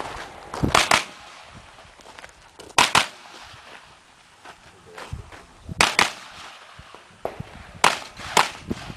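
9mm AR-15 carbine fired at long-range steel targets: eight sharp shots in four quick pairs, each pair about two seconds apart.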